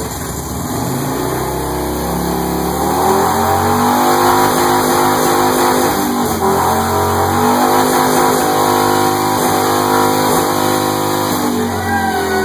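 Motorcycle engine revved hard and held at high revs during a burnout, the rear tyre spinning on concrete and smoking. The revs climb over the first couple of seconds and then stay high.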